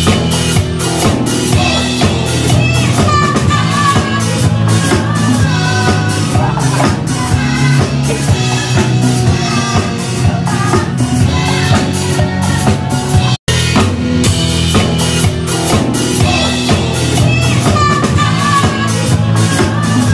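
Live band music with a drum kit keeping a steady beat under a woman singing. It breaks off for an instant about two-thirds of the way through and starts again.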